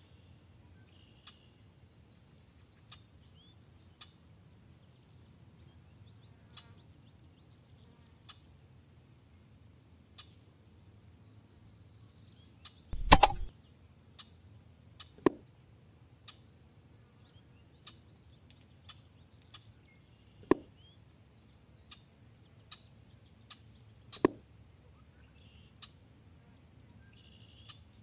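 Faint bird chirps and scattered small clicks over a low steady background, with one loud knock about halfway through and a few sharper clicks after it.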